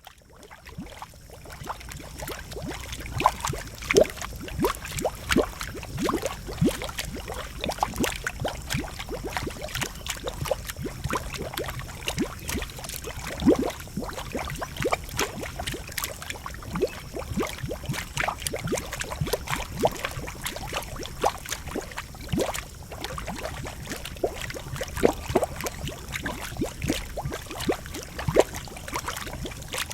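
Geothermal pool bubbling and gurgling, with irregular pops and short falling blips over a steady low rumble.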